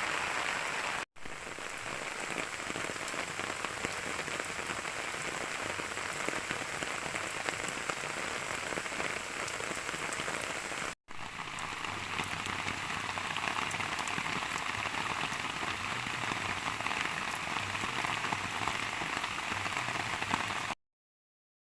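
Steady rain falling, with many individual drops pattering on surfaces. It cuts out abruptly for an instant twice and stops dead near the end.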